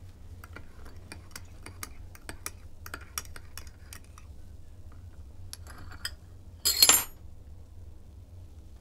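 Metal teaspoon clinking against the inside of a ceramic coffee cup while stirring: a string of light clinks, about two or three a second. About seven seconds in comes one louder clatter with a short ring, as the spoon is put down.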